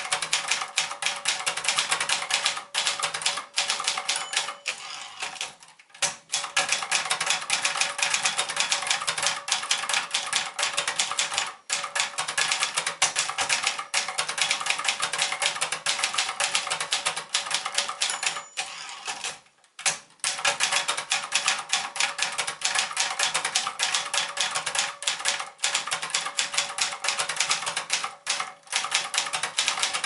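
1970 Brother Opus 899 portable manual typewriter being typed on at a fast, steady pace: a dense run of key and typebar strikes. The typing breaks off briefly twice.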